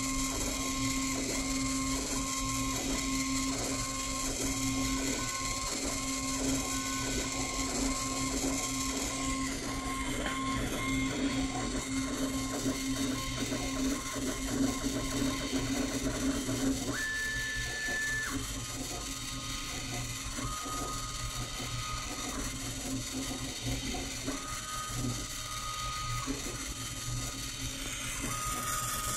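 A desktop 3D printer's stepper motors whining in steady tones that jump in pitch from move to move, mixed with the repeated chirps of a homemade 8mm film telecine's servo film feed as it advances the film frame by frame.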